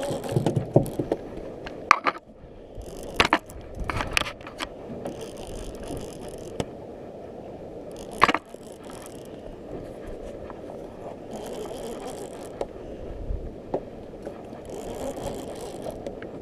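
Conventional fishing reel being handled and cranked: a few sharp clicks from the reel and its lever, and spells of a faint whirring hiss as the spool turns. Under it runs a steady low background rush.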